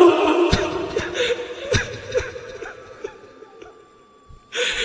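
Pause in a Quran recitation: the reciter's held note dies away in the room's echo, followed by scattered soft vocal sounds and small clicks, with a brief louder burst of voices near the end.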